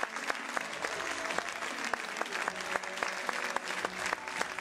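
Audience applauding: many hands clapping in a dense, steady patter, with voices faintly through it.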